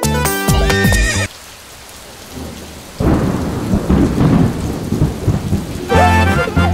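Rain and thunder sound effect: the music breaks off about a second in for a soft hiss of rain, then a loud rumble of thunder rolls in about three seconds in and lasts around three seconds. Children's music comes back near the end.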